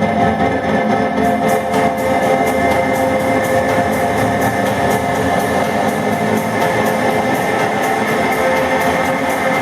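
Electronic dance music played by DJs, with sustained chords and plucked, guitar-like notes; a steady run of hi-hat ticks comes in about a second in.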